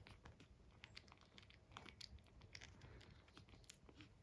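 Faint, scattered soft clicks and rustles from young puppies squirming and mouthing on a plush blanket.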